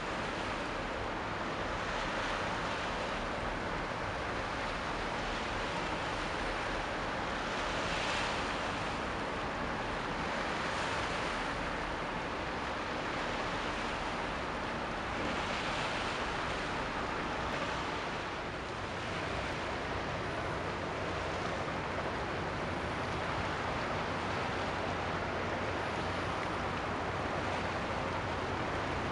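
Sea water washing and lapping, with wind noise over it: a steady rush that swells every few seconds.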